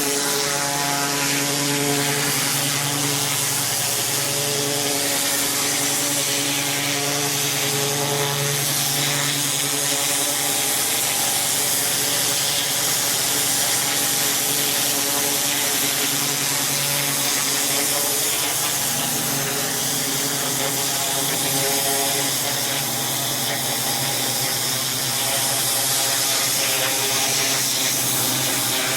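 Engine-driven pressure washer running steadily under load, a droning engine tone beneath the hiss of the high-pressure water jet, the pitch shifting slightly now and then.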